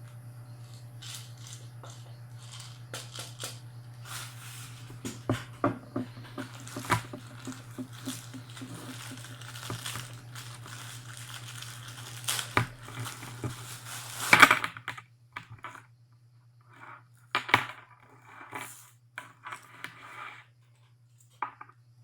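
Crinkling, rustling and irregular clicking as a stainless steel shower hose and its plastic packaging are handled, with the loudest burst about two-thirds of the way through and sparser handling noises with short quiet gaps after it. A low steady hum runs underneath.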